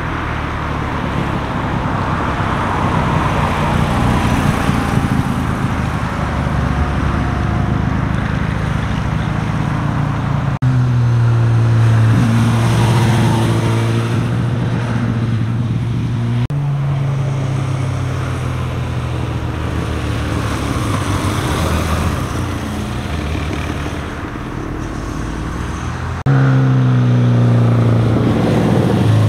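Road vehicles passing close by on a winding road: cars at first, then motorcycles leaning through the bends with their engines running at a steady pitch. The sound changes abruptly three times, and the loudest parts are the motorcycle engines.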